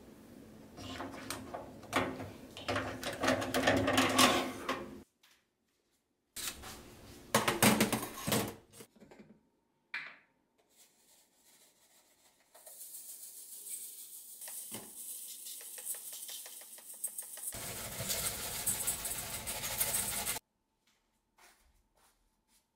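Metal mesh range-hood filters clattering and clinking as they are handled, in two bursts of a few seconds each. Later comes several seconds of steady hissing from the sink where the filters lie, fuller near the end, cut off suddenly.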